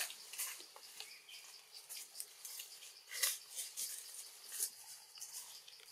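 Leaves and twigs rustling and crackling in short, irregular bursts as a baby macaque moves and feeds in the tree branches, with a few sharper crackles about three and four and a half seconds in.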